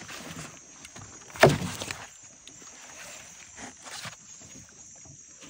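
Knocks and shuffling in a canoe, with one loud thump about a second and a half in and a few smaller knocks later.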